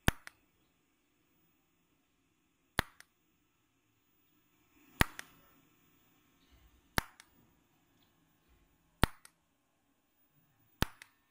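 TIG200A argon-arc welder tacking sheet metal about 0.3 mm thick with short spot welds. Six sharp arc-start cracks come about two seconds apart, each followed a moment later by a fainter click.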